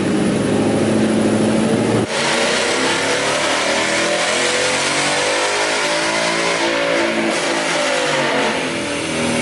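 Ford Mustang engine running hard on a chassis dyno during a power pull, its pitch shifting as the revs change. The sound changes abruptly about two seconds in.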